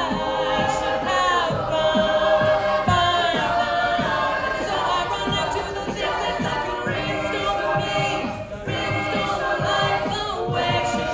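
An a cappella vocal group singing in close chordal harmony, with no instruments, over a repeated pattern of short low thumps that keeps the beat.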